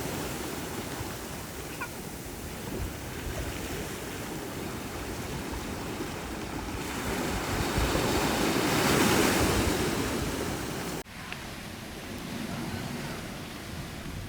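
Ocean waves washing on the shore, with wind on the microphone. A wave swells louder about nine seconds in, and the sound drops suddenly about eleven seconds in.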